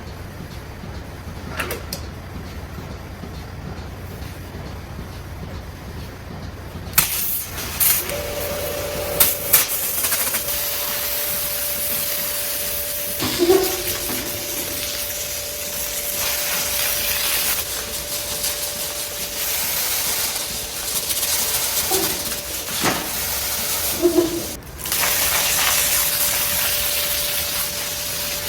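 Water booster pump running with a steady whine while water hisses through the newly replumbed lines and pressure tank, being tested after a leak repair. The hiss comes in about seven seconds in, and a few knocks and clunks sound over it.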